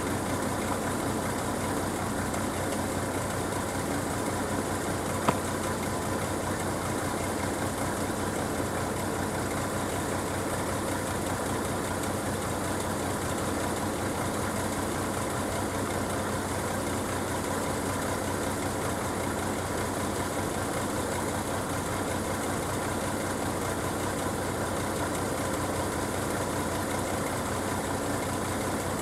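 Car engine idling steadily, with one short sharp click about five seconds in.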